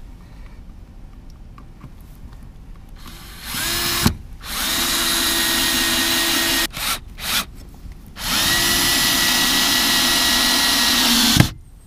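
Bosch cordless drill-driver driving self-tapping screws: a short burst about three and a half seconds in, then two longer runs of a steady whine, about two and three seconds long, with quick blips between them. The runs end with a sharp knock.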